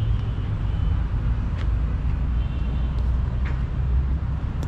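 Wind buffeting the microphone in an open yard: a steady, uneven low rumble with no engine note, with a few faint clicks.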